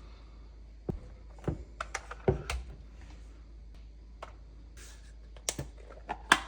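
Hard objects being handled: a run of irregular clicks and knocks, with a brief hiss about five seconds in and the sharpest knock near the end.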